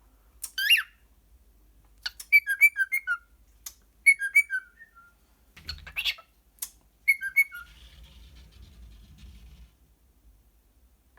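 Cockatiel calling and whistling: an arched, rising-then-falling call near the start and again about six seconds in, with quick runs of short, falling whistled chirps in between. There are a couple of sharp clicks.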